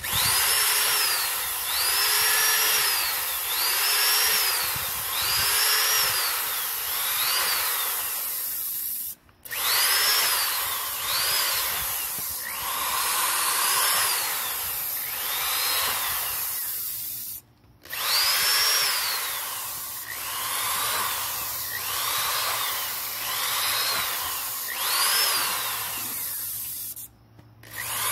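Electric drill boring holes through a plastic jug, its motor whine rising and falling in pitch about every one and a half to two seconds as each hole is drilled. It stops briefly three times.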